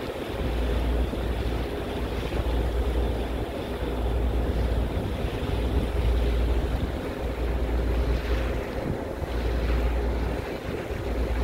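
Wind buffeting the microphone in gusts over the steady drone of a ferry's engine, with water rushing past the hull.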